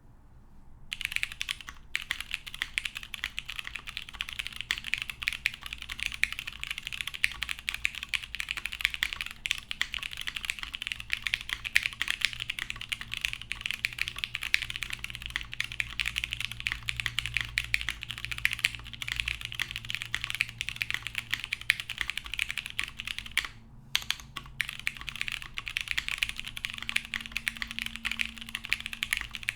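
Continuous fast typing on a Keycult No. 2 tenkeyless mechanical keyboard with lubed vintage Cherry MX Brown switches, a gasket-mounted half polycarbonate plate and GMK keycaps: a dense run of key strokes. It begins about a second in and breaks off briefly about 24 seconds in.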